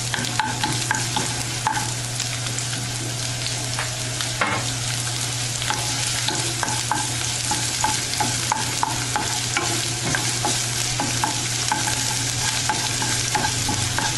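Diced onion frying in hot oil in a nonstick pan with a steady sizzle, the onion just added to the hot oil. A wooden spoon stirs and scrapes it around the pan with many short, irregular scraping ticks.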